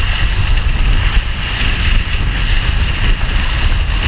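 Wind buffeting the microphone and water rushing and spraying along the hull of a foiling rigid inflatable boat at speed, with a faint steady whine from its outboard motor.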